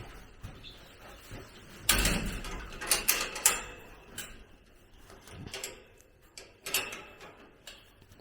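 A door being handled: a run of knocks and rattles, the loudest about two seconds in, with a few more over the next few seconds.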